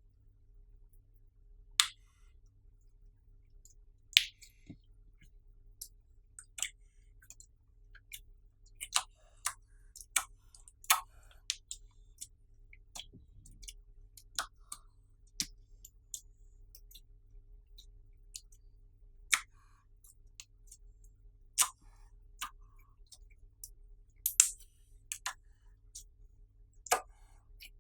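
Clear slime being squeezed and worked by hand, giving irregular sharp pops and clicks, a few much louder than the rest.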